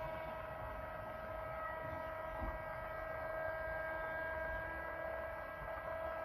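Stepper motor in a 3D-printed robot arm's fourth joint, driven by a TB6600 stepper driver and turning the joint at a steady speed. It gives a steady whine of one pitch with overtones.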